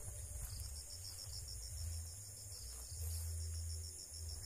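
Insects chirping in a fast, even pulse at a high pitch, with a low rumble underneath.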